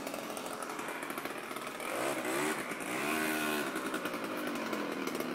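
Small moped scooter engine running as it is ridden, its pitch rising and falling twice in the middle as the throttle is opened and eased.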